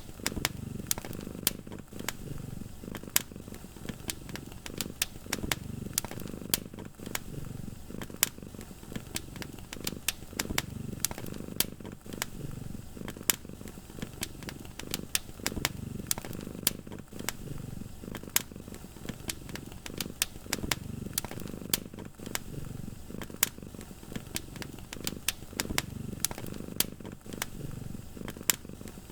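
Wood fire in a fireplace crackling, with many sharp pops at irregular intervals, over a low cat's purr that swells and fades every couple of seconds.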